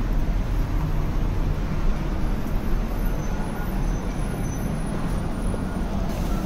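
Steady city street noise: road traffic running past on a busy road, with a constant low rumble.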